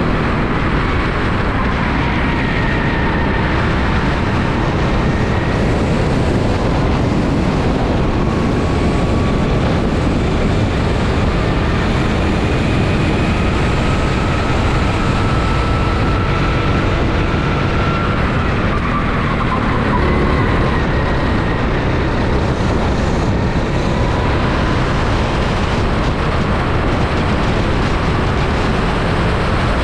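Rental go-kart engine running at speed, heard onboard, its pitch climbing slowly along a straight and falling as the kart slows about two-thirds of the way through, over a steady rush of noise.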